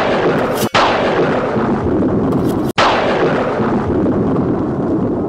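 Booming blast sound effects: a loud crash right at the start, another just under a second later and a third near three seconds in, each trailing off into a long rumble.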